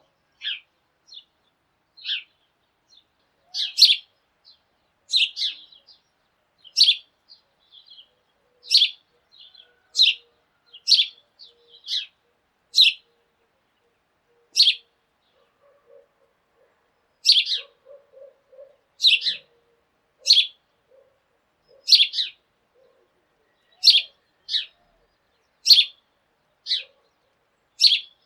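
Sparrow chirping: a string of short, sharp chirps, roughly one a second.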